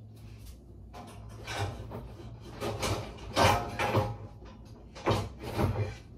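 Rummaging through kitchen bakeware: a series of clattering knocks as pans are moved and pulled out, the loudest about three and a half seconds in.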